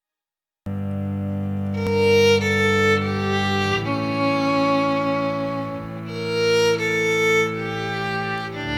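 Background music: a violin-like bowed-string melody over held low notes, starting abruptly out of silence less than a second in.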